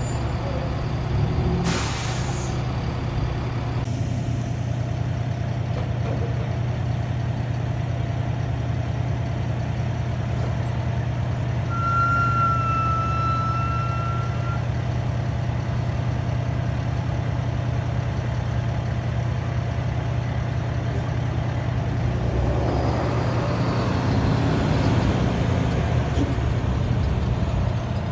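Diesel fire trucks running, with a steady low engine drone throughout. There is a short air hiss about two seconds in and a steady beep for a couple of seconds near the middle, and a water tender's engine grows louder near the end as it pulls up.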